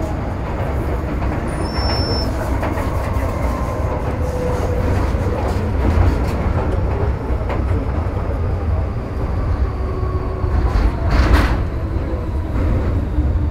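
Heard from inside the car, a Metro Cammell M-Train electric multiple unit running between stations: a steady rumble of wheels on rail, with a faint whine from the GEC GTO chopper traction equipment that drifts slowly in pitch. A brief louder rushing noise comes about eleven seconds in.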